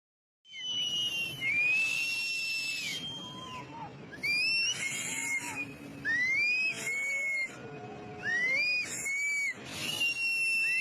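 An animal's high-pitched cries, repeated roughly every two seconds: each one rises in pitch, holds, then drops away, over a low background rush.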